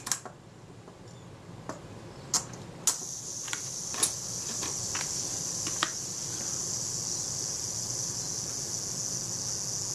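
Synchro-Compur shutter's clockwork self-timer: a few small clicks as it is set, then from about three seconds in a steady high buzz of the escapement running down evenly, which the repairer judges sounds good.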